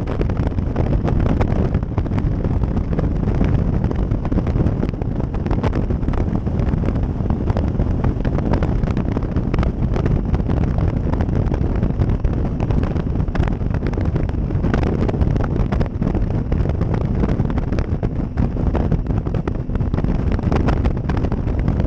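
Loud, steady wind rush buffeting the microphone of a motorcycle riding at road speed, with the Triumph Tiger 800 XCx's three-cylinder engine running underneath.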